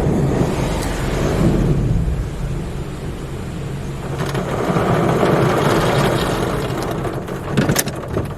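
In-bay automatic car wash spraying water over a car, a steady rushing and drumming with a low rumble, and a few sharp knocks near the end.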